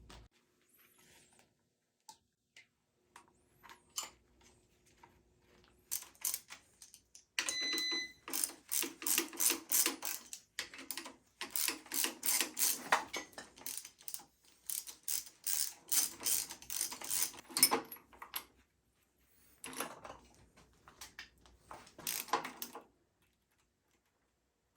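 Hand ratchet wrench clicking in several runs of rapid clicks as bolts are turned, with a short metallic ring about seven and a half seconds in.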